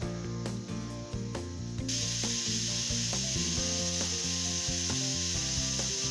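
Food sizzling in hot oil, a steady hiss that gets much louder about two seconds in, over background music.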